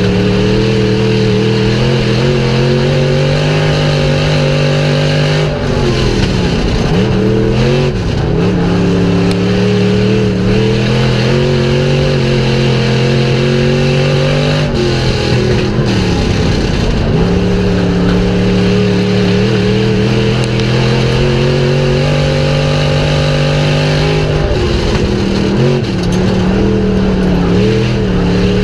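IMCA stock car's V8 engine at racing speed, heard from inside the cockpit: held at high revs down the straights, the revs dropping sharply and climbing back about every ten seconds as the driver lifts off for the turns.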